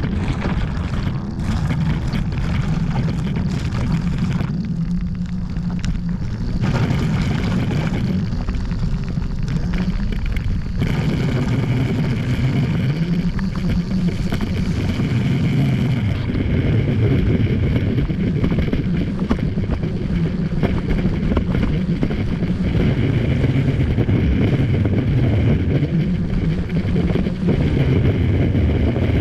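Hoverboard hub motors driving a steel-framed robot mower chassis, their pitch wavering up and down as the speed changes, with wind rumbling on the microphone.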